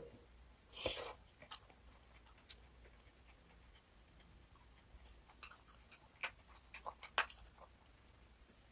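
Eating and snack-handling sounds: a short crunch about a second in, then scattered sharp clicks, clustering about six to seven seconds in.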